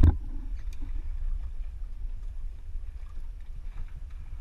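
Steady low rumble aboard a small boat on open water, with a few faint clicks.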